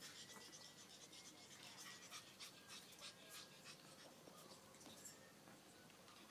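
Near silence: faint, irregular soft ticks and scuffles from pug puppies moving about and nosing around on a concrete floor.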